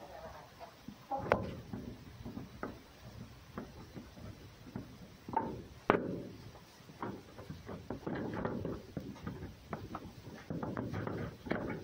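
Soft rustling and scraping with scattered light knocks and clicks, the sharpest about a second in and just before six seconds, as a red fox and a cat nuzzle and tussle on a wooden board.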